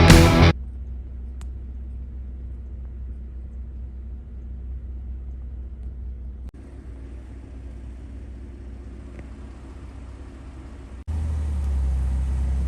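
Steady low rumble of a motor vehicle on the move, in three spliced segments, the last one louder. The tail of rock music cuts off about half a second in.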